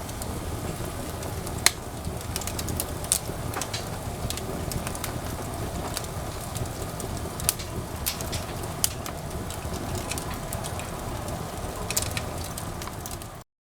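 Wood fire crackling in a fireplace: irregular sharp pops and snaps over a steady low rush. The sound cuts off abruptly near the end.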